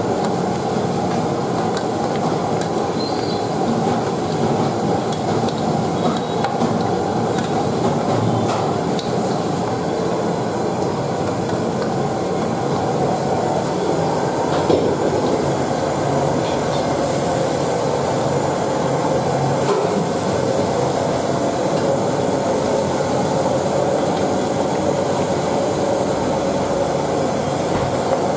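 Steady rumbling noise of a commercial kitchen with its gas wok burners lit, with a few faint clanks now and then.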